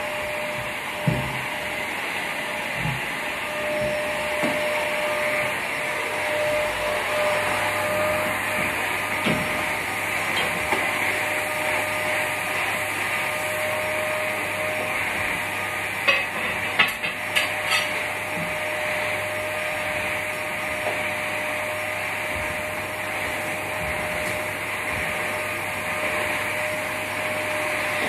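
Canister vacuum cleaner running steadily on carpet, its motor giving a steady whine over a rushing hiss. A cluster of sharp knocks comes about two-thirds of the way through.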